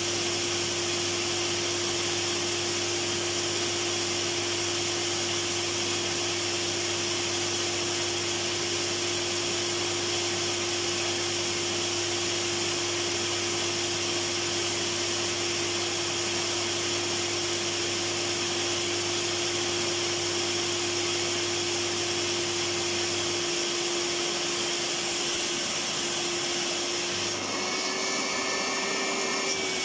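Electric vacuum cleaner running continuously, a steady rushing noise with a constant motor hum; the sound changes slightly a little before the end.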